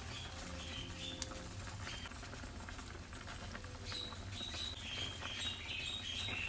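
Squid cooking in its black ink and liquid in a stainless steel wok, bubbling and crackling with many small pops. High squeaky chirps come now and then, more of them in the second half.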